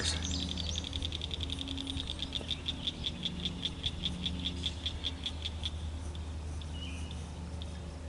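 A frog calling: a long run of quick, evenly spaced high clicks that fades out about six seconds in.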